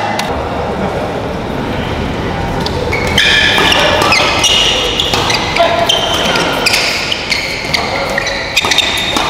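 Badminton rally in a sports hall: shoes squeaking on the court and sharp racket hits on the shuttlecock, which come thick and fast from about three seconds in, over the hall's steady background noise.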